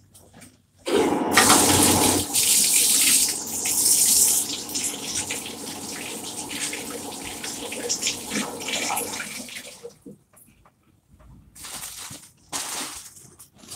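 A tap runs into a sink while hands are washed. It comes on about a second in, runs loudly at first and then more steadily, and shuts off about ten seconds in. Two short noises follow near the end.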